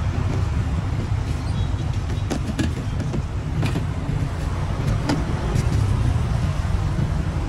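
Steady low rumble of street traffic, with a few light clicks and knocks from handling at the stall as pieces of offal go into a steel scale pan and plastic tub lids are moved.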